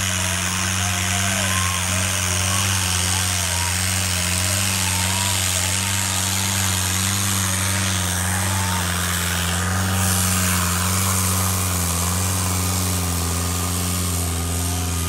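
Tractor diesel engine running steady and heavy under load as it pulls a harrow (tavia) through loose dirt, with crowd voices calling out over it.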